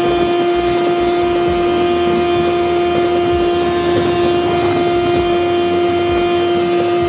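Boat's outboard motor running at a steady cruising speed with the boat underway, a constant pitched whine over rushing wind and water.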